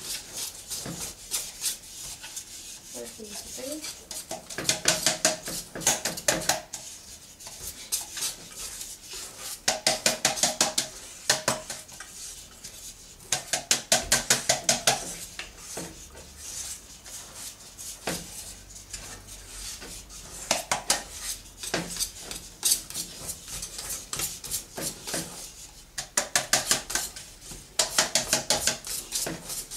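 A metal ring cake pan rapped by hand in bursts of quick taps, several to a second, the metal ringing through some bursts. The pan has been oiled and is being tapped to spread a dusting of powder inside it.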